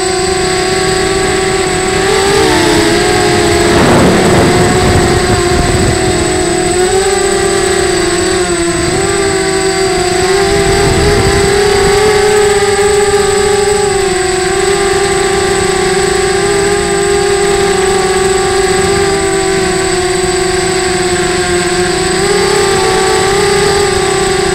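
Small RC quadcopter's electric motors and propellers whining steadily, heard from its own onboard camera, the pitch dipping and rising slightly with throttle changes. A rush of wind noise about four seconds in.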